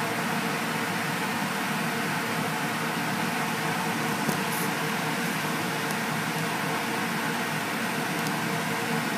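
Electric blower of an inflatable bounce house running steadily: a constant rush of air with a faint hum, heard from inside the inflatable.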